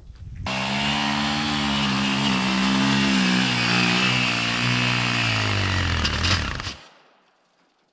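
Minsk X250's single-cylinder four-stroke engine held at high revs under load as the bike rides off up a sandy track. It starts abruptly, drops a little in pitch near the end, and fades out quickly about seven seconds in.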